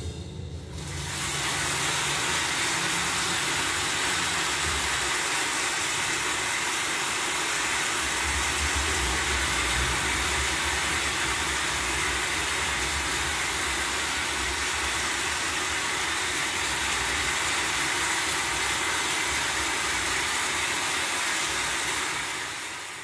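A steady rushing hiss with an uneven low rumble underneath, fading out near the end.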